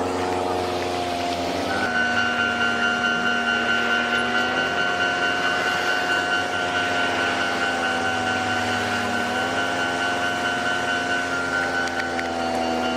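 A vehicle engine running steadily, with a steady high-pitched whine joining about two seconds in and fading near the end.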